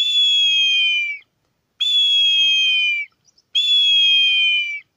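Handmade ceramic eagle whistle, two small whistles joined into one, blown in three long blasts of about a second each. Its two chambers sound two different notes at once, and each blast dips slightly in pitch as it ends. The clash of the two notes gives the timbre that resembles an eagle or hawk call.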